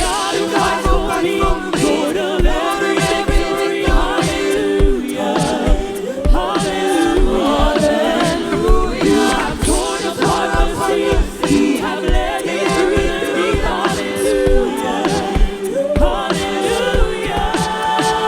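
Worship music: several voices singing in close harmony with no clear words, over a steady low thumping beat.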